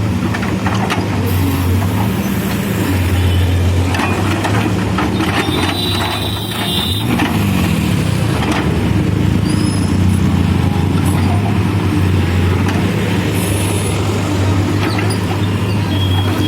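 Diesel engine of a CASE backhoe loader running steadily under working load. Its pitch sags and picks up again about six to seven seconds in, with occasional clanks.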